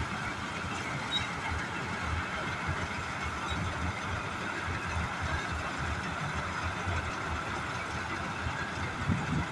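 John Deere 5075 tractor-mounted combine harvester working through standing grain: its diesel engine runs steadily under load together with the harvesting machinery, at a constant level throughout.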